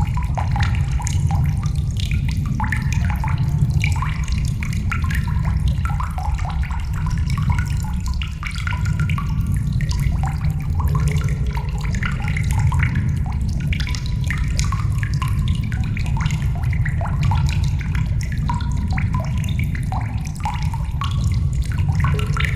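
Water trickling and dripping in a cave, with echo: many small irregular drips and plinks over a steady low rumble.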